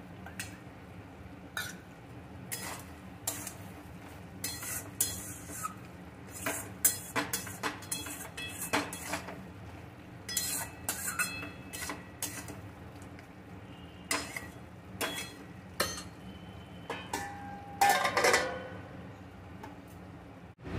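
A metal spatula stirring and scraping through a thick curry in a metal kadai, clinking against the pan again and again. Near the end a steel plate is set over the kadai as a lid, with a louder clatter and a brief ring.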